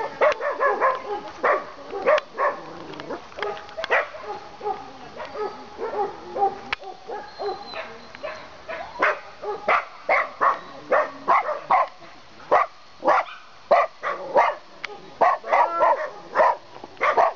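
Dogs barking, a few short barks a second, busier in the second half.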